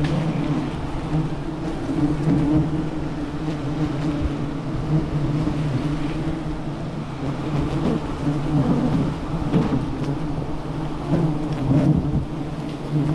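Wild honeybees buzzing as a swarm around a nest being cut for honey, a continuous hum that swells and eases.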